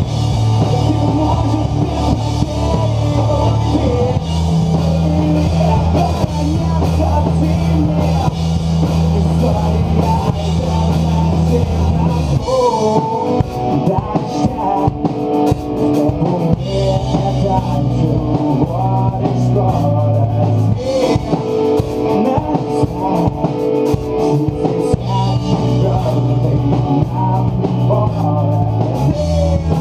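Progressive rock band playing live: drum kit with electric guitars over held low notes. About twelve seconds in, the low notes break off and the section changes.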